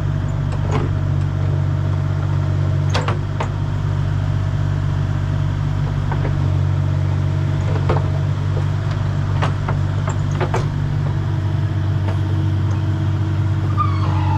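Truck engine idling steadily, with a few scattered clicks and knocks over it.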